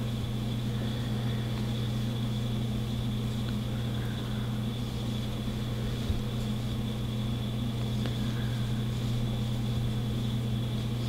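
A steady low hum with a faint high-pitched whine above it, unchanging throughout, and a single soft click about six seconds in.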